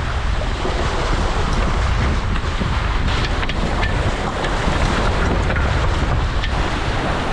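Heavy wind buffeting a GoPro microphone on a Tornado catamaran sailing through steep chop, with water rushing along the hulls. Short sharp splashes and spray hits come now and then.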